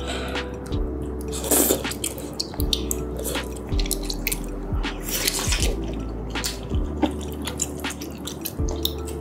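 Close-miked wet chewing of chewy tteokbokki rice cakes: many short, wet mouth clicks and smacks. Soft background music with held chords plays underneath.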